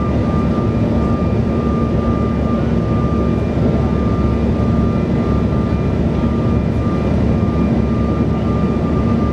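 Cabin noise inside a Bombardier CRJ700 airliner in flight: a steady, loud rumble of airflow and engine noise, with a constant whine from the rear-mounted GE CF34 turbofan engines.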